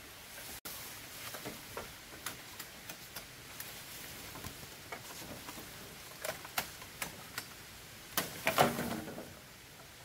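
A string of light clicks and knocks, about two a second, with a louder cluster of clattering knocks about eight seconds in, over a faint steady hiss.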